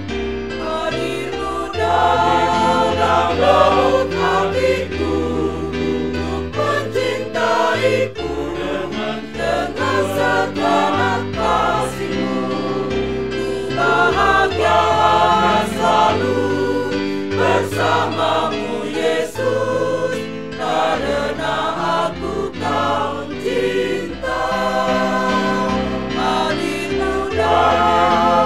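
Mixed church choir of men and women singing an Indonesian hymn in harmony, a virtual choir of separately recorded voices mixed together.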